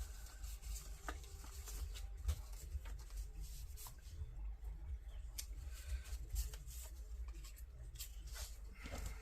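Cut paper scraps being handled and laid out on a scrapbook page: faint rustling with scattered light taps and clicks over a low steady hum.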